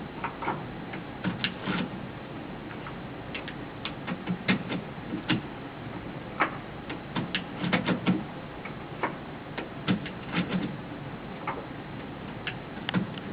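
Irregular light clicks and taps, scattered and sometimes in quick clusters of two or three, over a steady low background.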